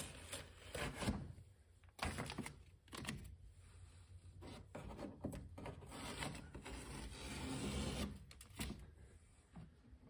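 Irregular scraping and rubbing with a few sharper knocks, as a backing piece is worked and peeled off a partly cured fiberglass patch by hand.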